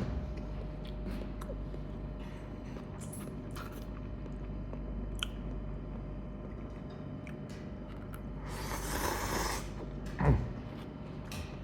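Someone eating ramen noodles: soft chewing and small clicks over a steady low hum, a longer noisy slurp about nine seconds in, then a single sharp knock just after it.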